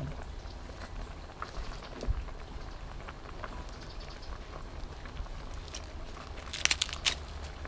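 Fresh leafy vegetables rustling and crackling as they are handled over a soup pot, with a few sharp crackles near the end. A faint steady hiss and hum run underneath.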